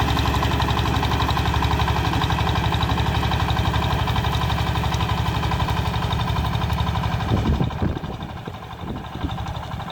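Power tiller's single-cylinder diesel engine running with a steady, rapid firing beat. About three-quarters of the way through, the engine sound breaks up and drops off sharply.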